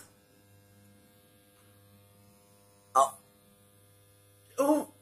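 Faint steady electrical hum, with a woman making two short throat-clearing sounds about three and four and a half seconds in.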